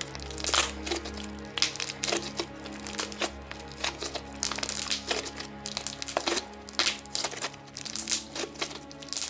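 Hands squishing and stretching a stiff, slightly overactivated chewy snow cream slime with straw beads, giving many quick crackles and pops.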